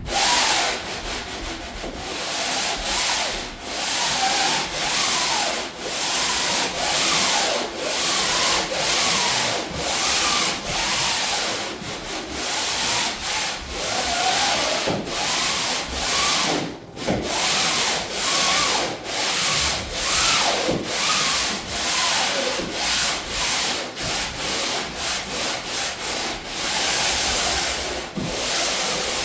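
Sandpaper rubbed back and forth by hand over painted plywood, in repeated rasping strokes about once a second, a little quicker near the end: a light sanding of the first coat of paint/primer.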